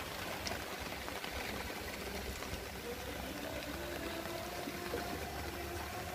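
Steady rain falling on the lake around a covered wooden boat, heard as an even hiss of water. From about halfway, faint held tones sound underneath, stepping from one pitch to another.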